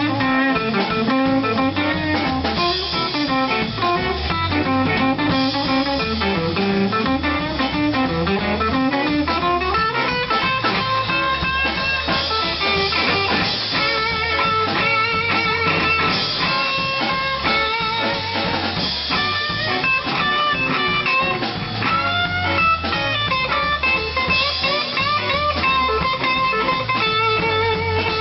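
Live blues band playing an instrumental break: electric guitar leading over drum kit and a walking bass line, continuous and loud.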